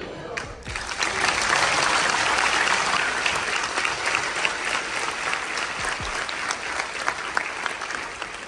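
Large audience applauding in a big auditorium. The clapping builds about a second in, holds steady, then slowly thins toward the end.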